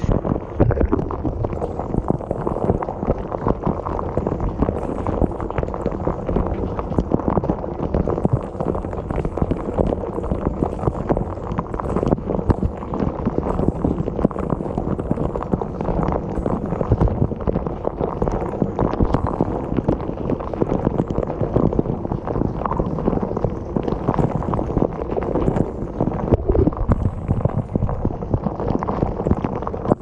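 Dishwasher wash cycle heard from inside the tub: the spray arms throw water over the dishes, rack and camera, a steady dull rush with constant irregular pattering.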